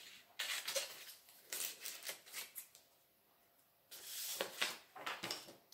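Scissors snipping through folded paper in short, quick cuts, in two bursts with a pause of about a second between them.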